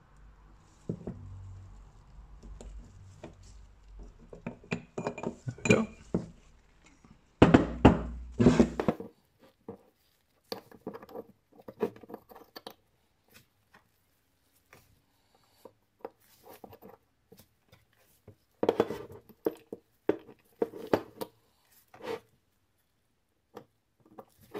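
Small metal clicks and clinks of brake pads, pad pin and spring being fitted into a Tokico six-piston brake caliper, with louder clattering knocks in two spells, about 5 to 9 seconds in and again about 19 seconds in.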